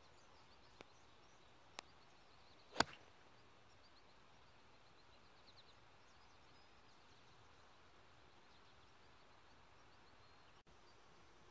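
A single sharp crack of a golf club striking the ball off the tee, about three seconds in, preceded by two faint clicks. Otherwise near-quiet open-air ambience.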